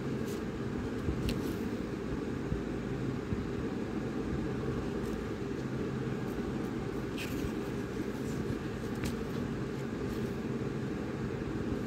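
Steady low background hum, with a few faint short rustles of paper banknotes being handled.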